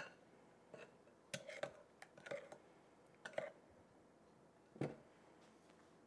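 A metal spoon scraping and tapping against a glass mixing bowl and ice cube trays while scooping a damp baking-soda and washing-soda paste: about five or six soft clinks and scrapes in the first five seconds.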